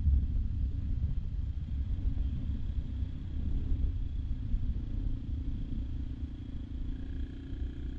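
AJP PR7's single-cylinder engine running as the motorcycle slows on a gravel track, under a heavy low rumble of wind buffeting the microphone.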